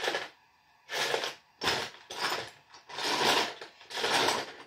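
LEGO pieces being rummaged through and handled: about six short bursts of plastic rattling and rustling, each under a second, with brief pauses between.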